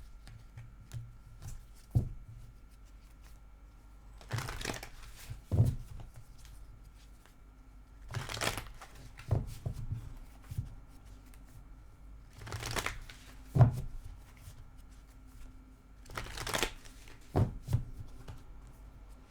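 A deck of tarot cards being shuffled by hand. There are four short riffles about four seconds apart, each followed by a sharp knock or tap as the deck is squared.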